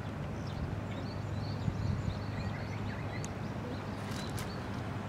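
Small birds chirping in short rising calls over a steady low outdoor hum, with a few light clicks near the end.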